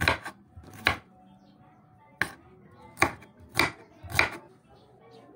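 Kitchen knife chopping red onion on a wooden cutting board: six separate sharp knife strikes through the onion onto the board, with a pause of about a second after the first two.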